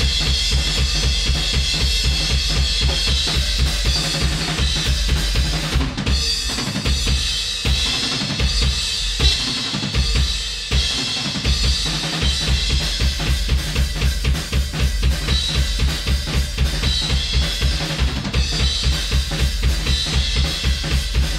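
Recorded drum kit playing a steady kick-and-snare beat, heard uncompressed with the LA-2A bypassed. About six seconds in the kick drops out for a sparser break, and the full beat returns around twelve seconds.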